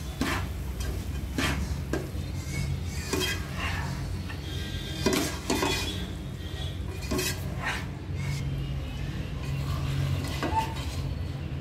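A spoon scraping and knocking against a nonstick pan as cooked rice is stirred and turned through masala, in irregular clinks and scrapes about once or twice a second, over a steady low hum.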